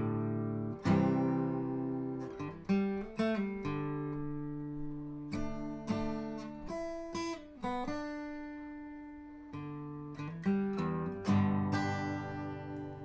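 Background music: a solo acoustic guitar playing plucked notes and strummed chords that ring out and fade.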